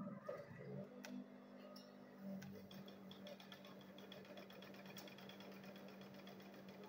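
Industrial sewing machine stitching leather, faint: a steady motor hum with a fast, light, even ticking of the needle.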